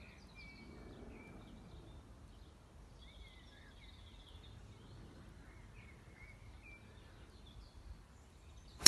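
Faint birds chirping over quiet outdoor ambience, then near the end one sharp crack of a golf driver striking the ball off the tee.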